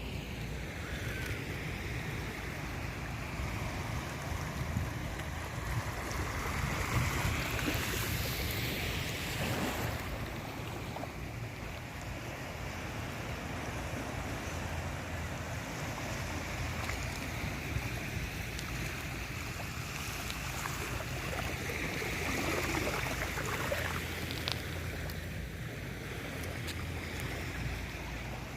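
Ocean waves washing and breaking in a steady rush that swells twice, once about a quarter of the way in and again past the middle, with wind rumbling on the microphone.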